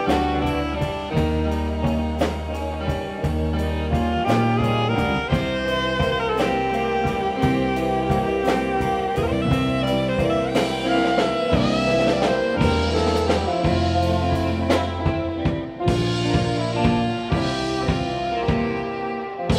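A rock band playing an instrumental passage: a drum kit keeps a steady beat under a heavy bass line and sustained instrument notes.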